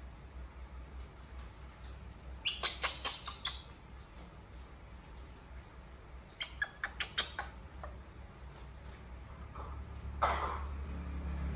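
Short, high-pitched animal chirps in two quick runs of several calls each, then one longer call near the end, over a low steady hum.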